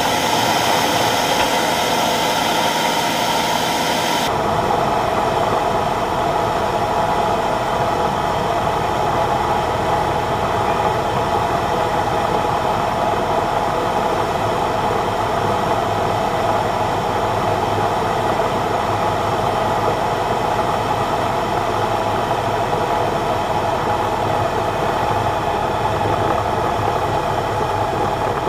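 Kitfox light aircraft's propeller engine heard from inside the cockpit, running steadily with a loud rush of air for about four seconds. It then changes abruptly to a duller, steadier engine sound at low power as the plane rolls on the runway.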